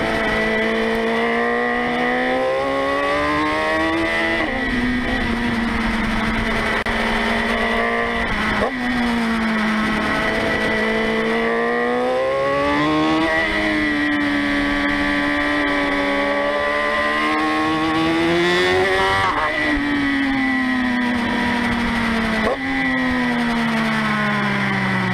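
Motorcycle engine pulling hard through a run of bends, its pitch climbing and then stepping down sharply at gear changes about five times, and falling away near the end as the bike slows.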